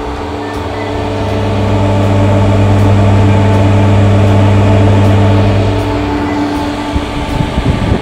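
Small round plastic duct fan running with a steady low hum. It swells toward the middle and fades off near the end.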